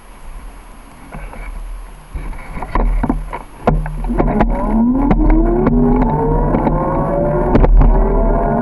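A bike setting off: a few clicks and knocks, then a hum that rises slowly in pitch as it picks up speed, with wind rumbling on the microphone.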